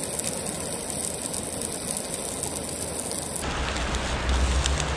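Sliced onions sizzling and crackling in a hot frying pan as they caramelize. About three and a half seconds in, the sizzle gives way to a lower, steady rushing sound.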